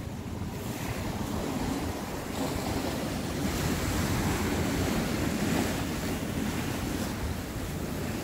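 Heavy surf breaking on shore rocks in a rough sea, a steady rushing wash that swells in the middle. Wind rumbles on the microphone underneath.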